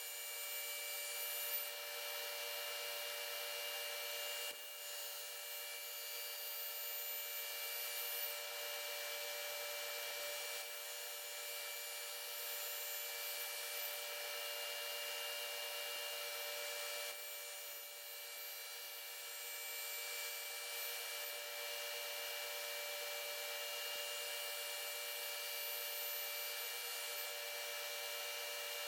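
A steady hum with hiss, made of several unchanging high tones over an even noise, with an occasional faint knock.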